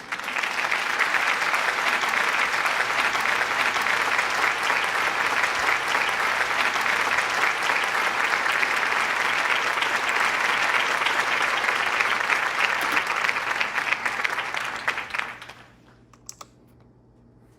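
Applause: a dense crackle of many hands clapping that holds steady, then fades away about fifteen seconds in.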